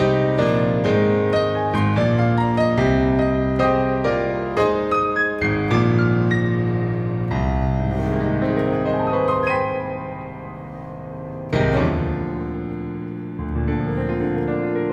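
Digital stage piano playing a solo piano piece: full sustained chords under running notes, thinning out and growing quieter around ten seconds in before a loud chord strikes about a second later.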